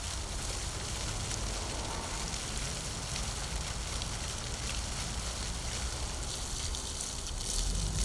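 Water from a jet fountain falling into its stone basin, a steady splashing hiss.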